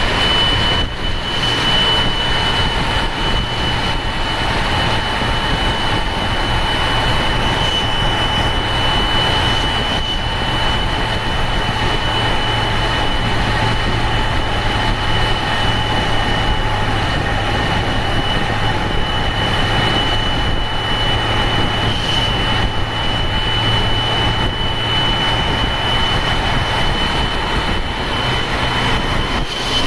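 Ashok Leyland turbo-intercooled diesel bus engine running steadily under load, with a constant high-pitched turbocharger whistle over the low engine drone.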